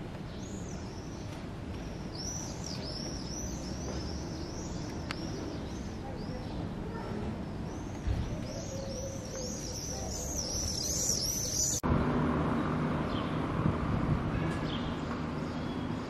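Small birds chirping over and over in quick, short calls, growing busier before breaking off abruptly about twelve seconds in. After that comes a rougher, louder outdoor background noise with only a few faint chirps.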